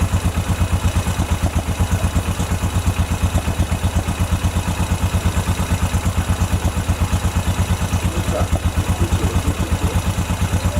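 Freshly rebuilt 2007 Honda ATV engine idling steadily with an even, rapid exhaust pulse. It has just been started after a new piston and cylinder were fitted.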